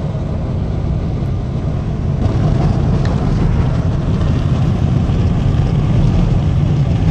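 Steady road and engine noise inside a Ford Expedition's cabin at highway speed, a low rumble that gets a little louder about two seconds in.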